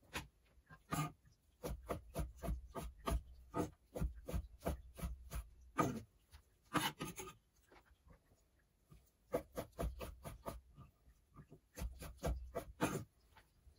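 Short, irregular scraping strokes, a few a second, with a pause of about two seconds midway.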